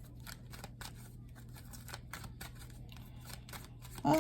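Tarot cards being handled: a run of faint, irregular papery clicks and rustles over a steady low hum.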